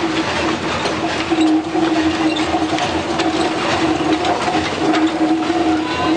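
O&K 0-8-0T narrow-gauge steam tank locomotive passing slowly with a train of empty wagons: the wheels and running gear clatter and clank over a steady, drawn-out tone.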